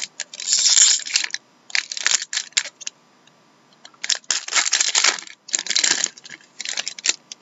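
Foil wrapper of a hockey card pack being torn open and crinkled by hand, in about five short bursts of crackling.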